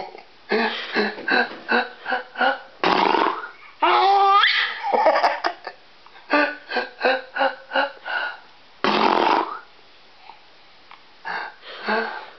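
A small child laughing in quick runs of giggles, with a man sneezing loudly twice, about three seconds in and again about nine seconds in. The child's laughter rises into a squeal after the first sneeze and picks up again after each one.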